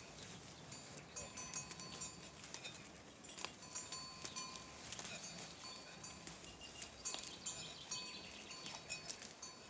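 Light, irregular tinkling of small metal bells, each strike ringing briefly, with a few soft clicks in between.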